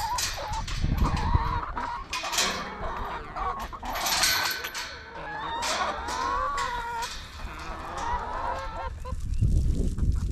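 A flock of chickens clucking and calling, several birds at once, with short wavering calls throughout. A low rumble comes in near the start and again near the end.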